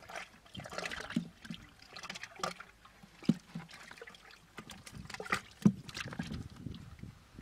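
A hand digging and groping in a water-filled mud hole: irregular wet squelches and small splashes of muddy water, with a few duller thuds.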